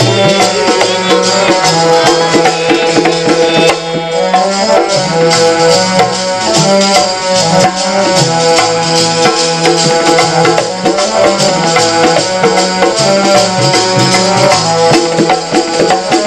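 Instrumental kirtan passage: tabla playing a steady rhythm under held melody notes that step from pitch to pitch.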